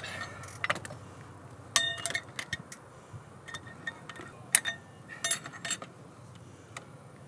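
Small metal parts and tools clinking and rattling as they are handled: a scatter of sharp clinks, one ringing briefly about two seconds in and a quick cluster a little past the middle.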